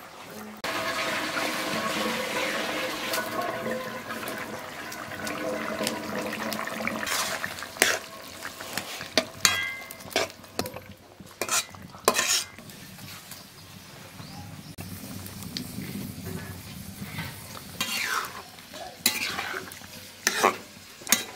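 A curry sizzling and bubbling in a steel wok for several seconds, then a long metal spatula stirring it, with irregular sharp clanks and scrapes against the wok.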